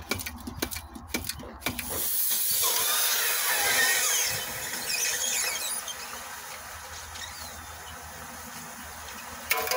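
A few sharp knocks as a wooden stick jabs a damaged 6S lithium-polymer drone battery. About two seconds in, the punctured pack starts venting gas with a loud high hiss and squealing whistle, loudest around four seconds in, then easing to a steadier hiss as it smokes without catching fire.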